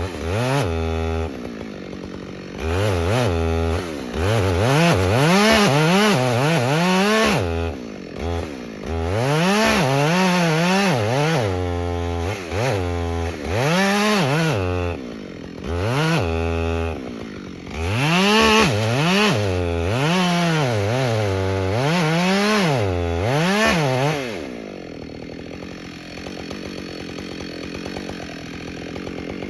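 Chainsaw engine revving up and dropping again and again while cutting wood, its pitch sweeping up and down every second or so. About 24 seconds in the revving stops and only a quieter steady running sound is left.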